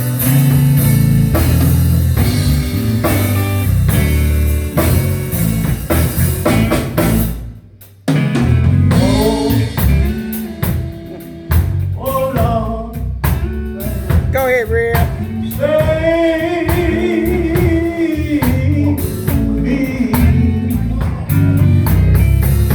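Gospel band playing with drum kit and electric guitar over a heavy bass line; after a short break about eight seconds in, singing with wide vibrato comes in over the band.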